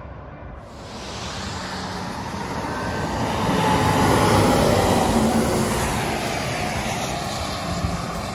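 A semi truck passing close on the highway: tyre and engine noise swells to a peak about four seconds in, then slowly fades.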